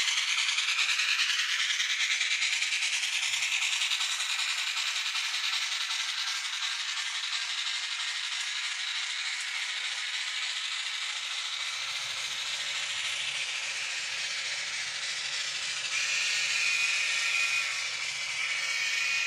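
The on-board DCC sound of a model steam locomotive, a small speaker playing continuous steam chuffing as the locomotive runs around the track. A brief steady higher tone comes in near the end.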